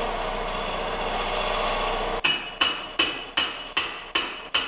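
A steady machine hum cuts off about two seconds in. A hammer then strikes metal in a steady rhythm, about two and a half blows a second, each blow ringing. The hammering drives a part tight on the tire changer so the wheel won't spin.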